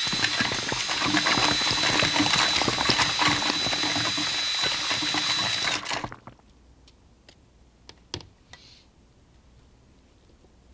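Power drill used as a blender, running for about six seconds with a steady high motor whine over a dense rattle as it mixes a smoothie, then stopping abruptly. A few faint clicks and knocks follow.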